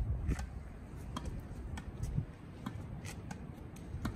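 Tennis rackets hitting a tennis ball back and forth in a quick volley rally, a sharp pock about two times a second. Wind rumbles on the microphone underneath.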